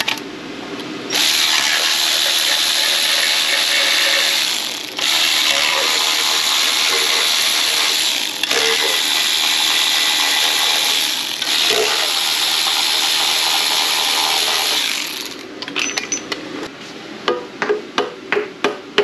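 Red Milwaukee cordless electric ratchet running in four long runs of several seconds each, backing out the valve-cover bolts on a GM LT1 V8. Near the end it gives way to a train of quick, evenly spaced clicks.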